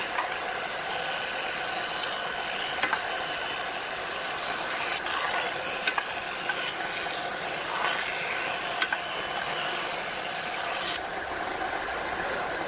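A machine running steadily, with a few sharp clicks scattered through it.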